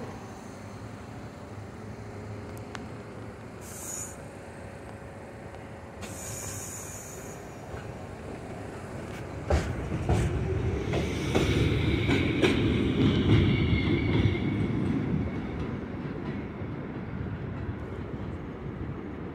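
R62A subway train pulling out of an elevated station: a steady rumble of wheels and motors that swells about halfway through, with rail-joint clicks and a high wheel squeal, then eases off.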